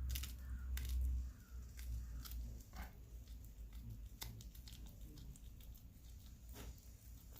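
A cat tearing and chewing at a small bird carcass, with scattered sharp crunching and crackling clicks. A low rumble is heard over the first second or so.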